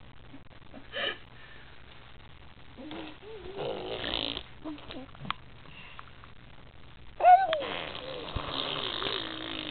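A 5-month-old baby making raspy, breathy throat noises. There is a short squeak about a second in and a breathy, wavering one around three to four seconds. Near the end a sharp squeal drops into a long, drawn-out raspy noise.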